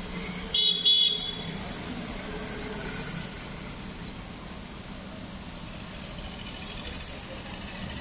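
A vehicle horn honks twice in quick succession about half a second in, the loudest sound, over steady background noise. After it, a small bird gives several short rising chirps about a second or so apart.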